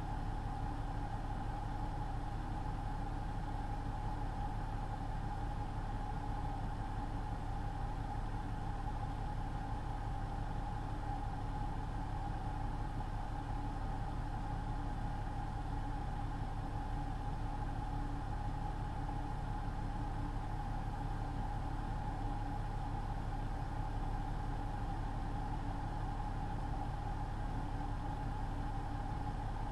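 Semi truck's engine and road noise heard from inside the cab, a steady drone at cruising speed with a constant high hum over it.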